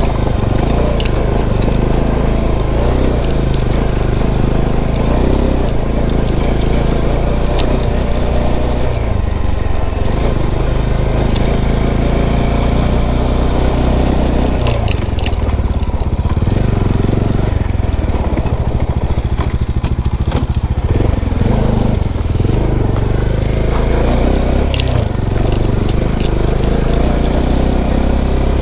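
Motorcycle engine running steadily at low speed over a rough off-road trail, with scattered knocks and scrapes from the tyres and loose stones.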